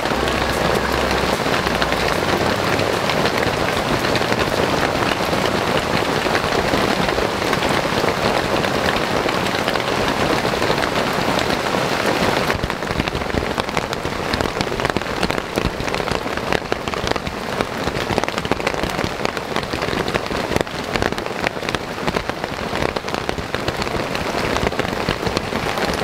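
Heavy rain falling steadily, the drops pattering on the camping tarp overhead. About twelve seconds in the sound changes to a thinner patter of more separate drops.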